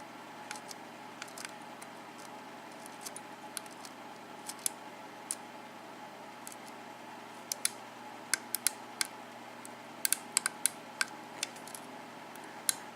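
Lock pick and tension wrench working the pin stack of a Schlage KIK six-pin cylinder under light tension: scattered small metallic clicks and ticks as the pins are lifted and set, coming thicker from about seven and a half to eleven seconds in.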